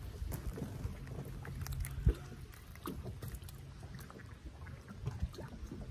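Low, steady rumble of wind and water around a small fishing boat. Scattered small clicks come through as a just-landed crappie is handled on the line, with one sharper knock about two seconds in.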